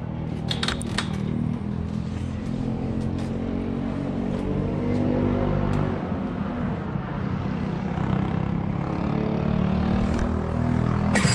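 A Rotax Max 125cc single-cylinder two-stroke kart engine running on track, heard from the driver's seat. Its note stays fairly steady and gets louder over the first couple of seconds, with a few sharp clicks in the first second.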